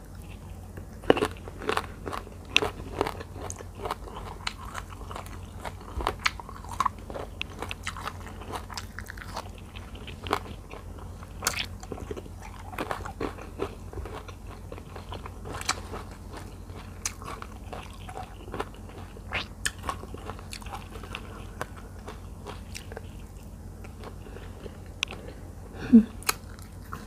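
Close-up crunchy chewing and biting of raw Thai eggplant with spicy fish larb, sharp crunches loudest in the first few seconds then steady chewing. A short low hum near the end.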